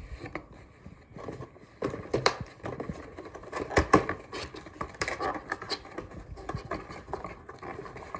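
Cardboard packaging being handled: a long boom-arm box's printed sleeve sliding and scraping off the inner cardboard box, with irregular rustles, scrapes and taps. A few sharper knocks stand out, the loudest about four seconds in.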